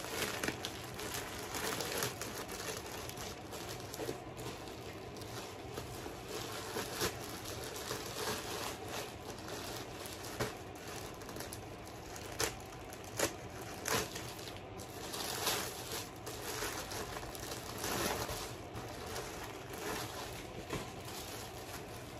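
Plastic packaging crinkling and rustling as a plastic mailer bag is worked open by hand, with several sharper crackles and rips in the second half.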